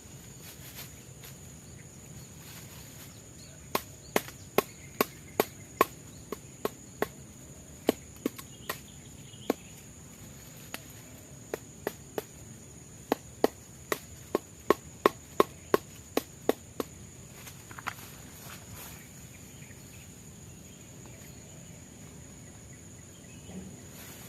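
Repeated sharp chopping strikes on wood, about two or three a second, in two runs of several seconds each with a short pause between. A steady, high insect drone runs underneath.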